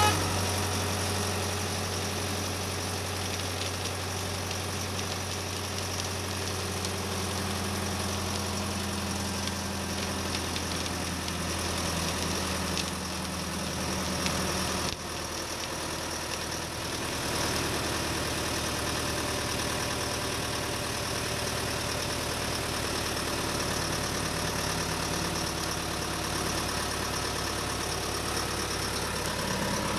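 Steady engine-idling sound, typical of a toy construction vehicle's sound effect, with a short drop in level about fifteen seconds in.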